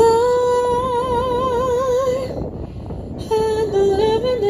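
A woman singing a long held note with a wavering vibrato for about two seconds. After a short break, she starts a new phrase about three seconds in.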